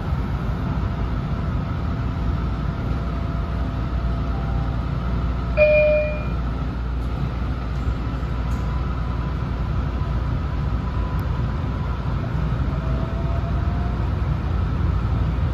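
Steady rumble of an MBTA Green Line light rail car heard from inside, with a single short chime about five and a half seconds in and a faint rising whine near the end.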